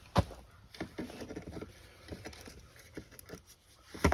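Light clicks and taps of small metal engine parts being handled: a two-stroke snowmobile piston and its wrist pin, just pushed out. A sharp click comes just after the start and two louder knocks come near the end.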